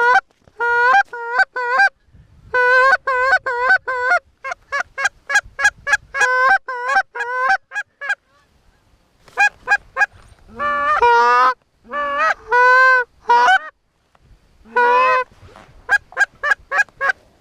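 Canada goose call blown by a hunter: quick runs of short, sharp clucks and honks, a few notes a second. After a pause about eight seconds in come longer drawn-out honks that rise in pitch, then another fast run of clucks near the end.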